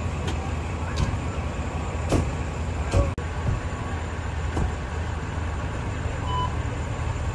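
Steady low rumble of idling emergency-vehicle engines, with a few scattered clicks and knocks. The sound drops out sharply for a moment about three seconds in.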